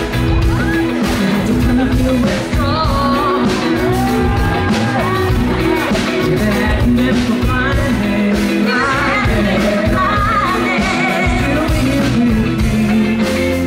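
Live band with electric guitar and keyboards playing an upbeat pop song, with a vocalist singing lead into a microphone.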